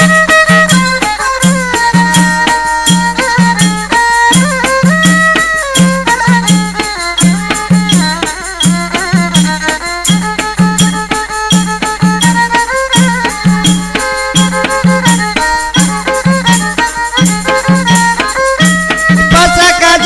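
Instrumental passage of ronggeng Pasaman, traditional Minangkabau folk music: a held lead melody over a steady low drum beat, about two to three beats a second, with rattling percussion.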